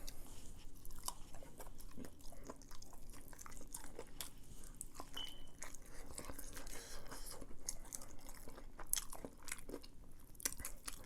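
Close-miked chewing and biting of crispy fried chicken, with many small sharp crunches and mouth clicks scattered throughout.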